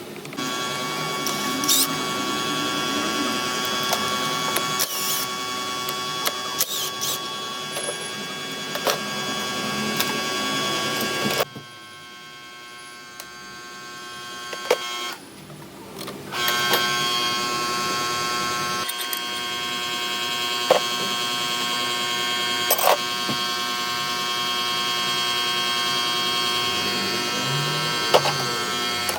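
A small electric motor running with a steady whine and scattered clicks. It drops away for about five seconds partway through, then starts up again.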